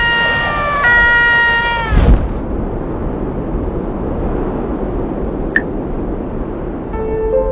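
Cartoon free-fall sound effects: a high, drawn-out cry falling slightly in pitch breaks off with a thump about two seconds in, then a steady rush of air as the paratrooper drops. Soft music comes in near the end.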